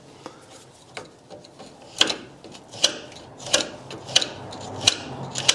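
Six sharp metallic ticks, evenly spaced about two-thirds of a second apart, starting about two seconds in: a hand scriber tapping against the steel of a rear chassis crossmember while a cut line is marked along a metal straight edge.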